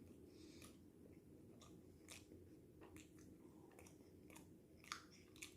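Faint chewing of a mouthful of pizza, with small mouth clicks scattered every half second or so; the loudest comes about five seconds in.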